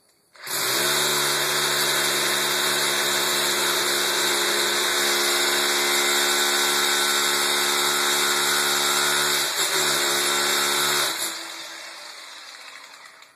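Hammer drill boring an anchor-bolt hole into a concrete pad, running steadily for about ten seconds, then let go and winding down near the end. The bit stopped going down, which the driller thinks means it hit rebar.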